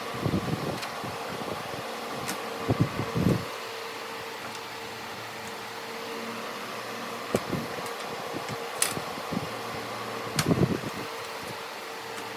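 Steady mechanical hum, like a fan or motor running, with a faint held tone. Scattered low thumps and a few sharp clicks come over it, in a cluster about three seconds in and again near the end.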